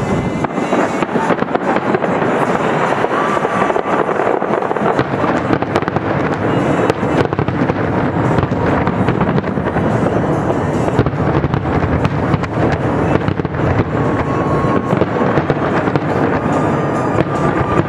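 Fireworks display: a dense, continuous barrage of shells bursting and crackling, with a few brief high whistling tones.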